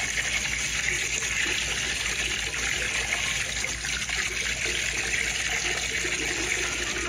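Several opened cans of blue drink, held together upside down, pouring at once into a toilet bowl full of punch: a steady splashing gush of liquid into liquid.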